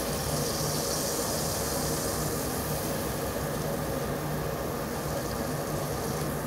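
Steady high sizzle from a hot tabletop barbecue grill plate, fading near the end, with a steady low hum underneath.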